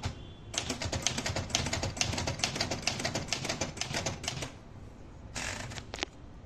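Olivetti Lettera 32 manual typewriter being typed on: a quick run of sharp key-and-typebar clacks for about four seconds. After a short pause comes a longer rasping sweep, then one clack, as the carriage is returned for a new line.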